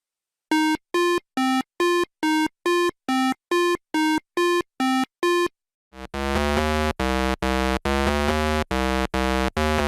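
Electronic synthesizer music: a run of about a dozen short, evenly spaced notes, then, after a brief gap about six seconds in, a fuller pattern of repeated chords.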